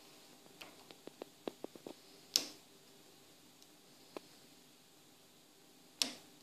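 Small metallic clicks of a lock pick and tension wrench working the pins of a Yale 851 padlock during single-pin picking: a quick run of light ticks about a second in, then a few louder single clicks, one near the end.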